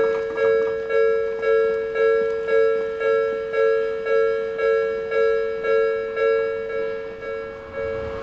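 Japanese level-crossing warning bell ringing: a two-pitched electronic clang repeated steadily about twice a second, each strike dying away before the next, which signals that a train is approaching.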